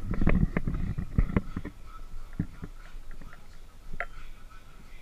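Clattering knocks and scuffs from hands working in a bucket, dense in the first second and a half, then a few single knocks.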